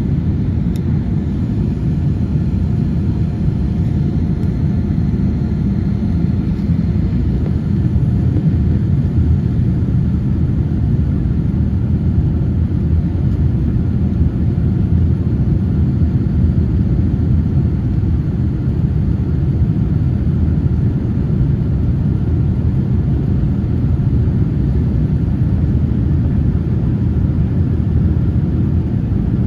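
Steady low rumble of a jet airliner's engines and rushing air, even in level throughout.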